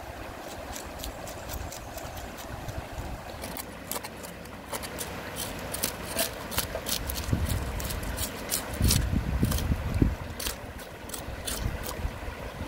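Steel cleaver scraping the scales off a fish on a wooden chopping board: a quick run of short, sharp scrapes. A river runs steadily behind it, and a low rumble comes about nine seconds in.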